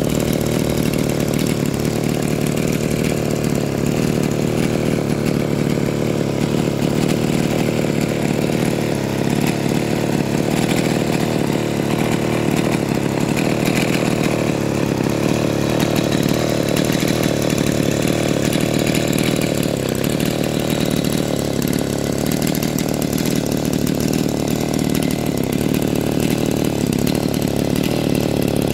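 Echo CS5000 two-stroke chainsaw idling steadily at one even speed after a cleaning and tune-up, running quietly through its stock muffler.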